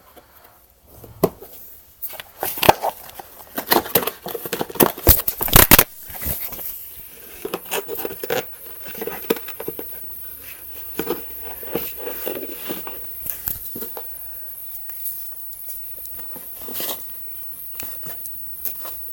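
A cat batting, scratching and pouncing on a cardboard box: a quick run of sharp knocks and scrapes, loudest in the first few seconds, then lighter scratching and rustling.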